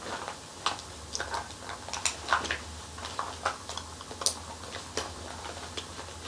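A scatter of small, irregular clicks and taps of makeup containers being handled while a bronzer compact is picked out.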